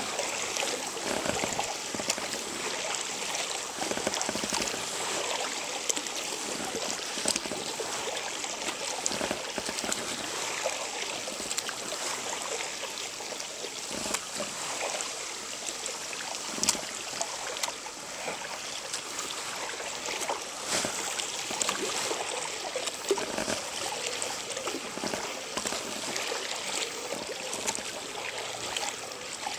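Double-bladed kayak paddle dipping and pulling through river water stroke after stroke, with water splashing and trickling off the blades.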